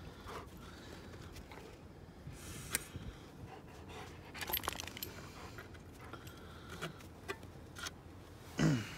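Needle-nose pliers clicking and scraping against snowmobile engine parts, in scattered light metallic ticks, while loose bits of shredded recoil plastic are picked out.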